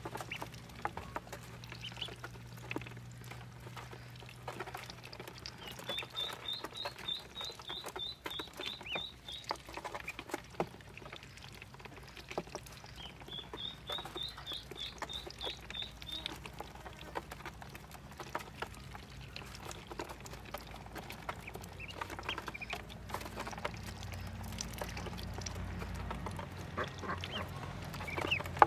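Ducklings peeping in two runs of quick, high repeated notes, each about three seconds long, over frequent light clicks of their bills pecking feed from a plastic feeder tray.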